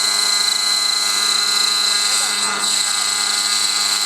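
Engine of a 50-size RC model helicopter running steadily, a constant high-pitched whine with the rotor hum.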